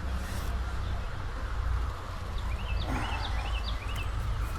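A bird gives a quick series of about six short rising chirps a little past the middle, over a steady low rumble.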